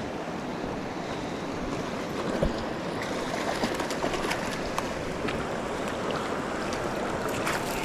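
Steady rush of the Gunnison River's flowing water, with a few faint ticks from about three seconds in.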